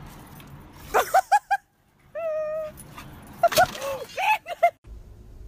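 Dogs playing, with a quick run of short yips about a second in, one short held whine about two seconds in, and another cluster of yips and barks from about three and a half seconds.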